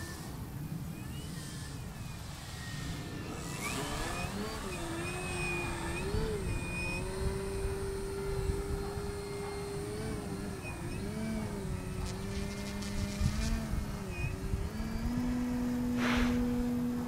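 Motor and propeller of a 57-inch 3DHS Extra 330SC radio-control aerobatic plane in flight, its note rising and falling as the throttle changes and stepping higher near the end, over a low rumble of wind on the microphone.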